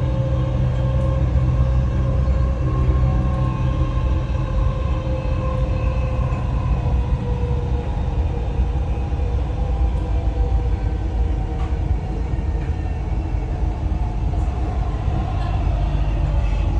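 Dubai Metro Red Line train running along its elevated track, heard from inside the carriage: a steady rumble with a few held humming tones over it.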